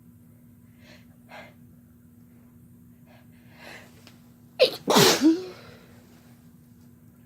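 A person sneezing once, loudly, about four and a half seconds in, after a few faint breaths and a drawn-in breath.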